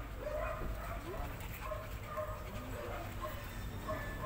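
Belgian Malinois whining in short, high-pitched notes, about two or three a second.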